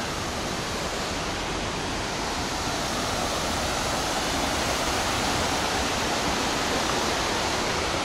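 Steady rush of a mountain stream cascading over rocks, swelling slightly over the first few seconds.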